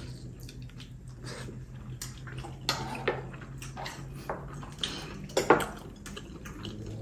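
Close-miked eating sounds: wet smacking and slurping as saucy braised chicken and rice are eaten, with scattered sharp clicks of chopsticks and a spoon against bowls, the loudest just after five seconds in. A steady low hum runs underneath.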